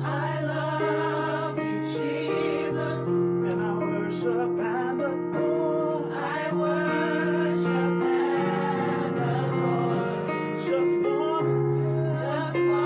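Gospel vocal group singing in harmony over keyboard accompaniment: the voices waver and slide above sustained chords.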